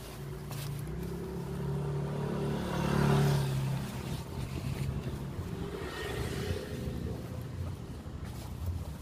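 A motor vehicle passing by, its engine hum swelling to a peak about three seconds in and then fading, with a lighter swell again around six seconds in.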